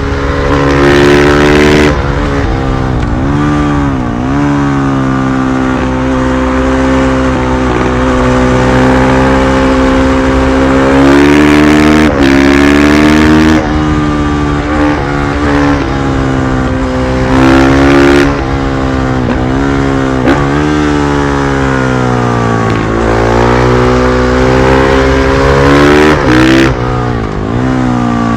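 2020 KTM 500 EXC-F supermoto's single-cylinder four-stroke engine running under way. Its revs hold steady for stretches and drop and climb again several times, as with easing off and reopening the throttle.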